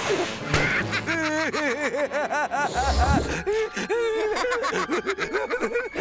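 Cartoon characters laughing: a long, rapid run of bouncing, high-pitched 'ha-ha's, after a short hiss right at the start. Faint music runs underneath.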